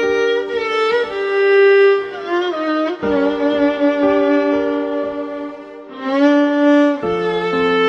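Music of slow, long held notes, several sounding together, some with a wavering pitch.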